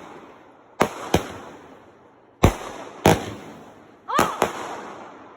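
Fireworks going off: six sharp bangs in rough pairs, each fading away in a long rolling echo. A person's shout of "Oh!" comes near the end.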